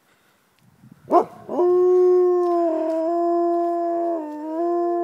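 Wolves howling: a short rising yelp about a second in, then a long, steady howl that holds its pitch and dips slightly near the end, with more than one voice sounding together.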